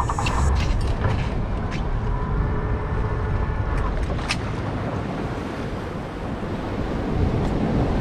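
Wind buffeting the microphone and sea noise around a small open boat in rough water, with a few sharp clicks and knocks.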